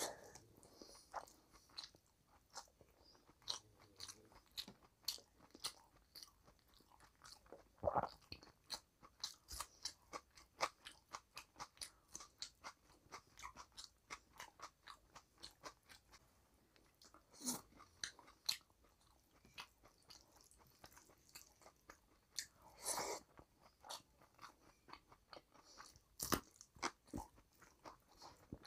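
Close-miked chewing of rice and chicken curry eaten by hand: a rapid run of wet mouth clicks, with a few louder crunches about 8, 17, 23 and 26 seconds in.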